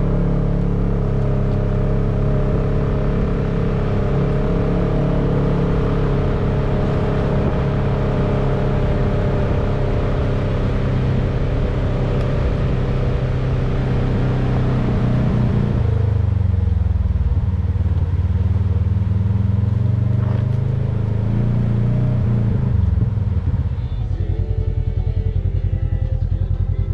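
Polaris RZR side-by-side's engine running steadily under way. It eases off about two-thirds of the way through, rises briefly, then settles to an even idle near the end as the vehicle stops.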